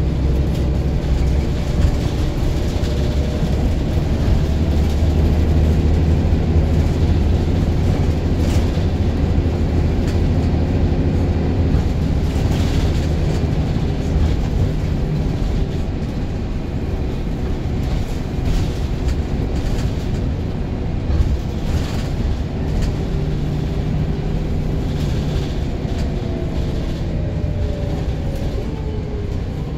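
Engine of Transdev Keighley single-deck bus 1808 heard from inside the passenger saloon while under way. It runs heavily under load for the first twelve seconds or so, then eases, then climbs in pitch again near the end as the bus accelerates, with occasional rattles from the bodywork.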